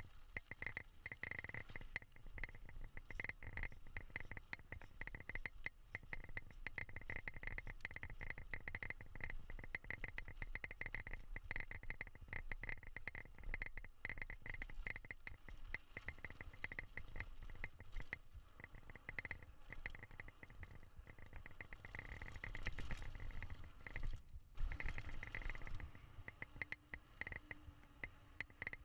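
GT Force X Expert full-suspension mountain bike riding downhill over dirt and gravel, picked up by its handlebar-mounted camera: steady tyre rumble with dense rattling and clicking from the bike over the rough ground, and a high buzz that swells and fades. It gets louder and rougher near the end.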